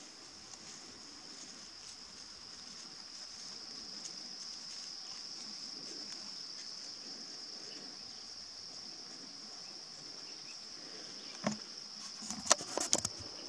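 Steady, high-pitched drone of insects trilling in the grass, unbroken throughout. A few sharp clicks break in near the end.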